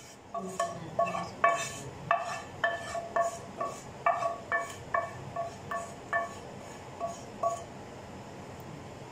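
A wooden spoon tapping against a tipped-up metal pan to knock the last of the sauce out. The pan rings with a clear, chime-like tone at each tap, about three taps a second, stopping about seven and a half seconds in.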